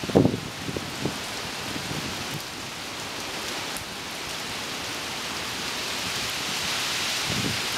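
Heavy rain falling steadily on trees and leaves, an even hiss that slowly grows louder. A few low thumps of wind on the microphone in the first second.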